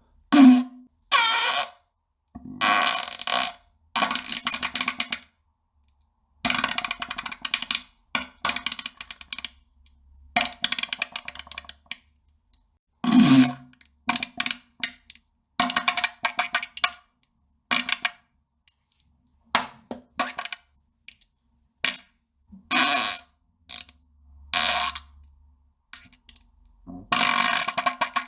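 A rapid series of fart and poop sound effects, about twenty short bursts in a row, each cut off by sudden silence.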